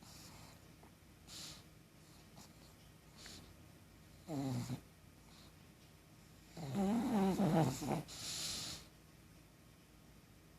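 A pug snoring in deep sleep: faint breaths, then a short snore about four seconds in, and a longer, louder snore with a wavering pitch about seven seconds in, followed by a hissing exhale.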